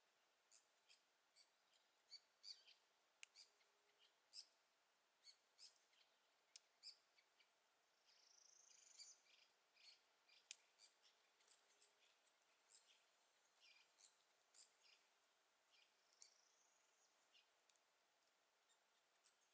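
Faint, high bird chirps, often several a second, with two longer slurred whistles, one about eight seconds in and one about sixteen seconds in.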